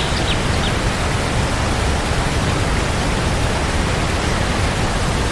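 Steady, loud rush of a large waterfall's falling water, an even roar with no rhythm or tone.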